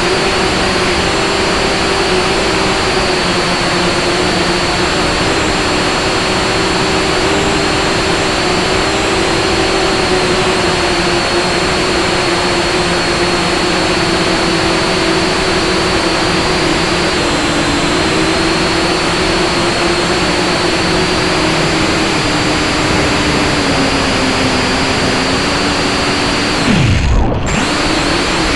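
Small toy quadcopter's motors and propellers whining steadily over a rushing hiss, heard from its own onboard camera, the pitch wavering slightly. Near the end the pitch plunges sharply and then climbs back up.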